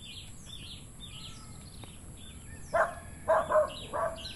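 A dog barking: four short, sharp barks in the second half. Under them a bird's high chirps repeat about three times a second.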